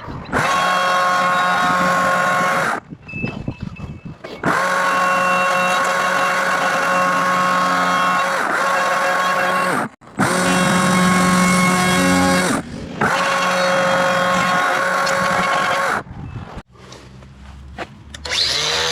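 Chainsaw running at full throttle in several long bursts with a steady high engine note, dropping back between them, as it carves into wood.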